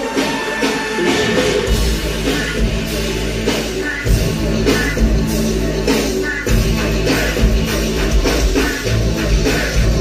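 Live band playing loud rock music: drum kit, bass and keyboards with a steady beat.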